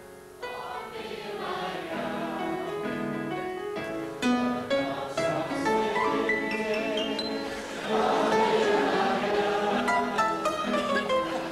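Theatre audience singing along together, struggling a little, to piano and band accompaniment; the singing swells louder about two-thirds of the way through.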